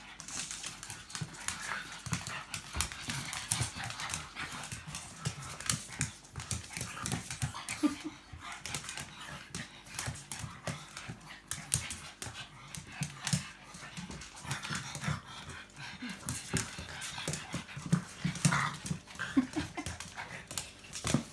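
A pug and a small white long-haired dog play-fighting: short low growls and grunts with panting, over a steady scuffle of paws and bodies. A brief whine comes near the end.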